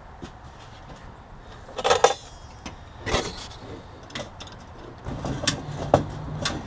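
Hand-fitting a new brake line in a car's engine bay: a few sharp metallic clinks and rattles as the line is bent and knocks against nearby parts, the loudest about two seconds in, with rustling near the end.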